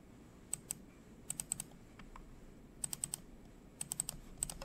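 Typing on a computer keyboard: short bursts of two to five quick keystrokes, with pauses between them.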